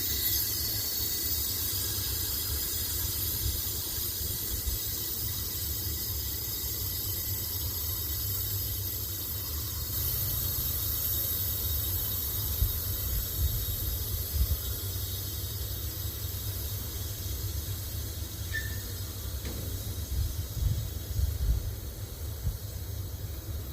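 Class 35 GM-EMD diesel locomotives standing with a steady low engine rumble under a loud, steady high hiss that starts abruptly, with a few low knocks near the end.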